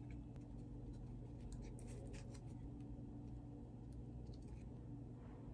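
Quiet eating and food-handling sounds: faint small clicks and rustles as food is picked at and peeled by hand, in two short clusters, over a steady low hum.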